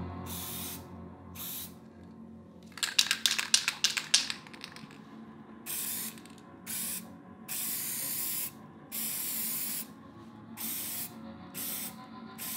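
Aerosol spray paint can hissing in about nine short bursts as letters are sprayed. About three seconds in, the can rattles rapidly for over a second, the loudest sound here, as it is shaken and its mixing ball knocks inside.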